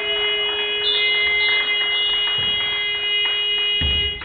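Gym scoreboard buzzer sounding one loud, steady electronic tone for about four seconds as the game clock hits zero, then cutting off: the end-of-game buzzer.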